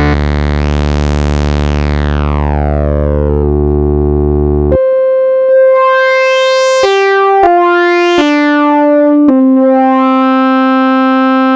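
Korg Minilogue XD synthesizer playing a held, bass-heavy note whose filter sweeps open and then closes, cut off about five seconds in. This is followed by a line of single held notes changing pitch every second or so, each with its filter sweeping up and back down.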